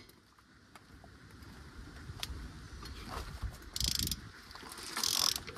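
Hand ratchet wrench clicking in short bursts from a little past halfway, as a fastener on the diesel engine is backed off; before that, only a few faint tool clicks.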